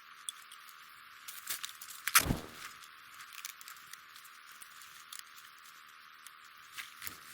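Rustling and small clicks of gear being handled, with one sharp knock about two seconds in and a softer thump near the end.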